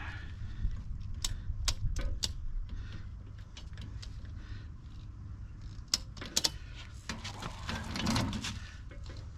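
Small ratchet strap being tightened around a tire to hold an angle-iron bar, its ratchet giving a series of sharp, irregular clicks with handling noise in between.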